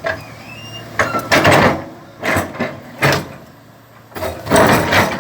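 Excavator with a jammed link, moving against it in irregular bursts of heavy metal grinding and creaking, with a short squeal near the start and the longest burst near the end.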